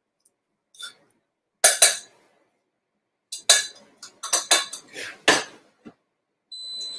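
Metal spoon clinking and scraping against a stainless-steel saucepan of cooked buckwheat: a string of sharp, ringing clinks, most of them in a cluster past the middle. Near the end, a short steady electronic beep from the cooktop controls.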